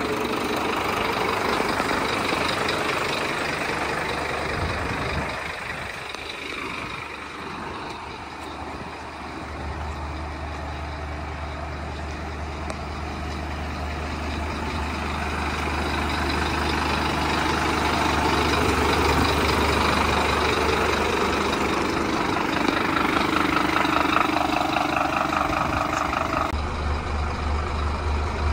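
Scania P230 truck's diesel engine idling. It is heard from outside the truck at first. Near the end the sound switches abruptly to a steady low engine hum inside the cab as the truck drives.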